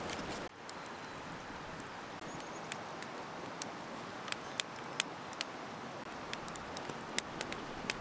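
Small cedar-wood campfire crackling: irregular sharp pops and snaps over a low, steady hiss of a low flame.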